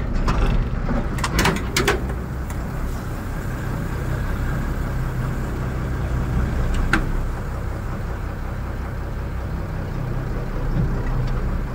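Tata truck's diesel engine idling steadily inside the cab, with a few sharp clicks in the first two seconds and one more about seven seconds in.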